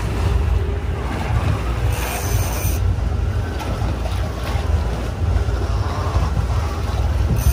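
Wind buffeting the microphone over the steady low rumble of a boat at sea, with water washing. Two short high hisses come about two seconds in and again at the end.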